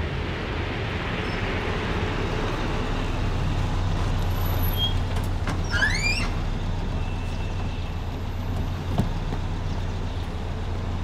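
A Daewoo city bus engine running at a stop, a steady low hum with road noise. About six seconds in there is a brief rising squeal, and a sharp click comes near the end.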